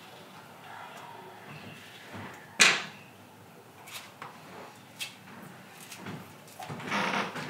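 A single sharp knock about two and a half seconds in, followed by a few light clicks and a short burst of rustling near the end.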